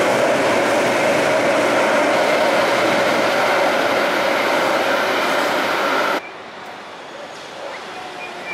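Electric light-rail train pulling out of an underground station, a steady loud rumble of wheels and motors that fades slightly as it goes into the tunnel. About six seconds in it cuts off suddenly, leaving much quieter street noise.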